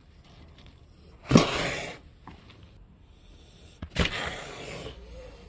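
Stray cat hissing twice at the person, a sharp hiss about a second in and another about four seconds in: a defensive warning.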